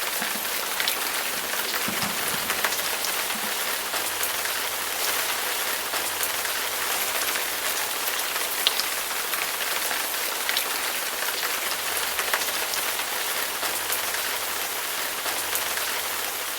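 Steady rain falling, a constant hiss with scattered individual drops ticking.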